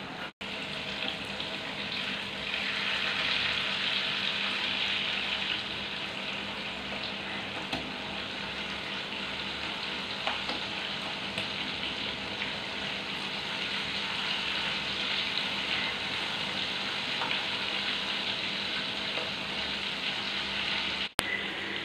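Pieces of tuna frying in hot oil in a pan, a steady sizzle that is a little louder for a few seconds near the start. Occasional light clicks of a metal spoon against the pan as the pieces are turned.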